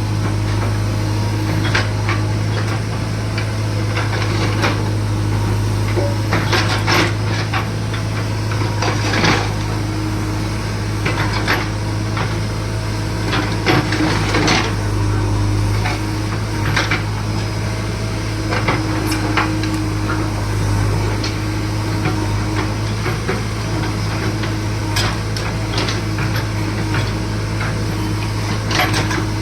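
JCB backhoe loader's diesel engine running steadily, with irregular knocks and clanks from the machine as it digs a pipeline trench.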